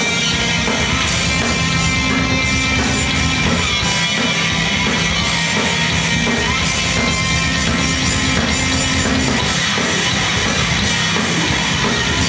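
Heavy metal band playing live: distorted electric guitars and a drum kit in a loud, dense wall of sound with rapid drumming.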